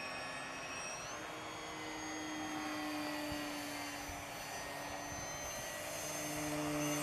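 Motor of a radio-controlled foam F-22 model jet in flight, a steady whine whose pitch steps up about a second in and that grows a little louder toward the end as the plane passes low.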